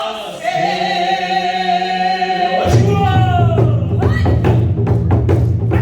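Korean traditional singing (sori): a voice holding long, drawn-out notes. About two and a half seconds in, buk drums come in with rapid rhythmic strokes under the voice.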